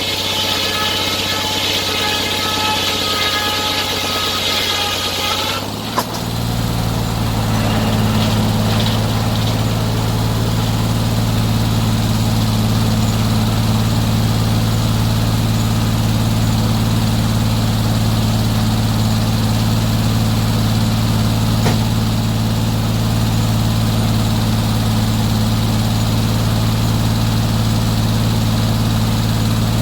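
Engine running steadily. For the first six seconds a higher-pitched whine and hiss sit over it, then stop with a click; after that the engine runs on as a steady low hum.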